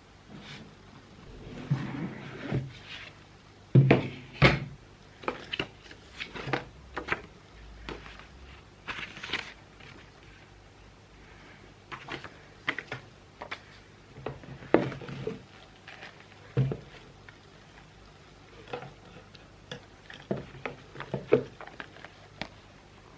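Irregular handling sounds: scattered knocks, taps and clicks of objects being moved and set down. A pair of louder thuds comes about four seconds in.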